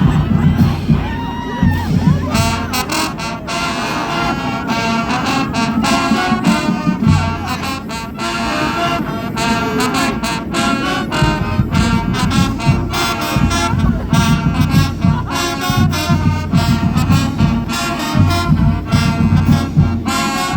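Crowd voices and shouts, then about two seconds in a brass band starts playing: horns in short, repeated phrases over a pulsing low bass line.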